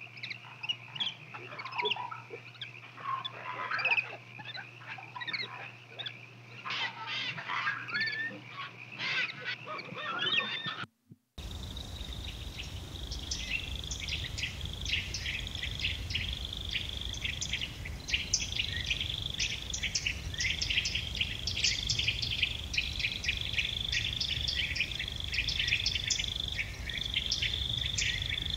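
Wild birds calling with varied, irregular chirps for about ten seconds. After a brief dropout to silence, insects chirp steadily at a high pitch in rapid repeated pulses, over a low rumble.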